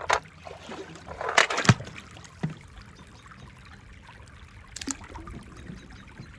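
A few sharp clicks and knocks, with the loudest cluster and a brief rattle about a second and a half in, over a faint steady hum.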